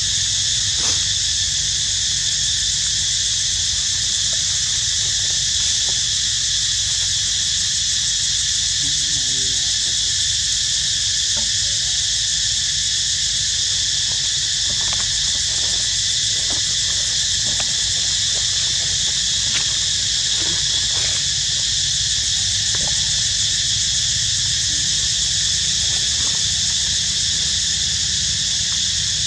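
A steady, unbroken chorus of insects in high, even bands, over a low steady rumble.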